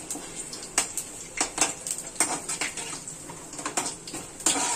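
Metal ladle scraping and knocking against a steel kadhai as whole spices are stirred in hot oil, in an irregular run of sharp clinks and scrapes.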